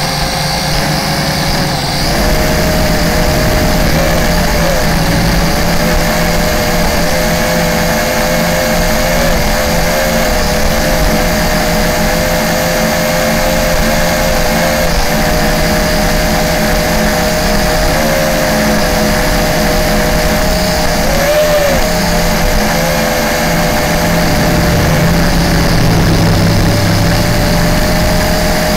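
Latrax Alias quadcopter's electric motors and propellers whirring steadily in flight, heard up close from the camera on board, a constant whine that wavers slightly in pitch as the throttle shifts.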